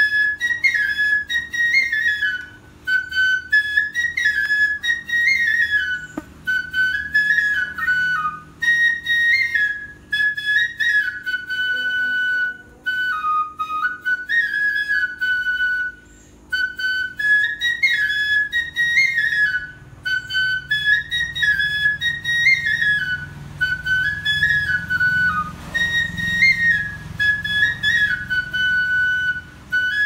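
Background music: a flute playing a simple melody in short, repeating phrases.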